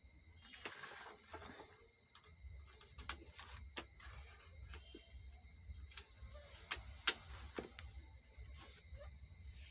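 Steady high chirring of crickets over a low hum, with scattered light clicks and taps, the two sharpest about seven seconds in.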